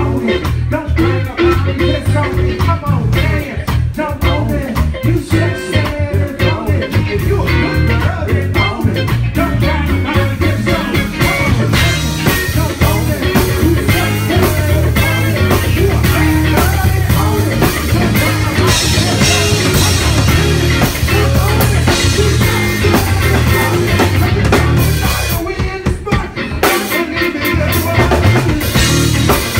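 Live funk band playing: drum kit, electric bass and electric guitar with singing. Near the end the band briefly drops back before the drums kick in again.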